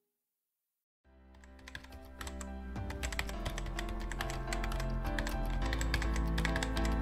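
Computer keyboard typing sound effect, a rapid run of clicks, over background music. It starts about a second in, after a moment of silence, and grows louder.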